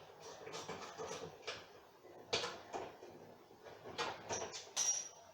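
Repair work on a washing machine: irregular knocks, clinks and scrapes of parts and tools being handled, with a short high squeak near the end.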